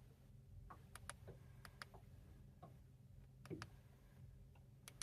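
Faint, scattered clicks of the Raymarine Element fishfinder's push buttons as menu options are stepped through, about eight presses at uneven intervals, over a low steady hum.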